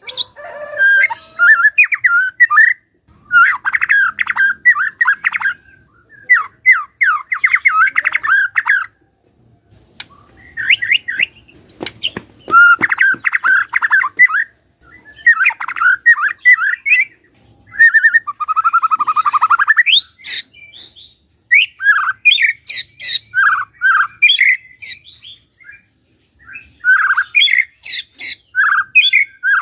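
White-rumped shama singing: loud, varied phrases of rapid trills, whistled glides and harsh chattering notes, coming in bursts separated by short pauses.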